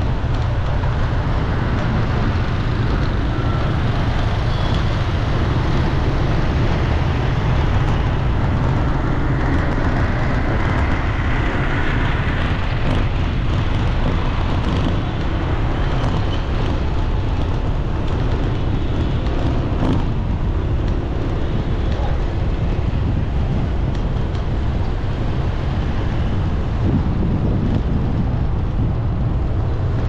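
Steady road traffic noise: a constant rumble of passing vehicles with no single standout event.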